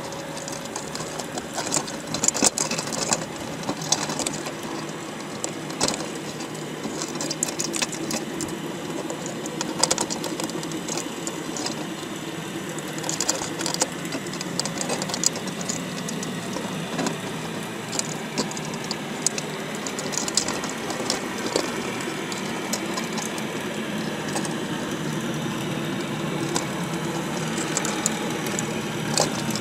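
Underwater sound inside a wire crab pot: a steady low mechanical hum, with many sharp clicks and ticks scattered over it from crab shells and legs knocking against each other and the wire.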